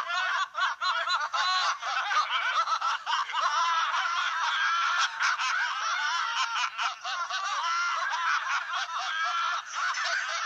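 Several voices laughing hysterically at once, high-pitched and overlapping, with no pause.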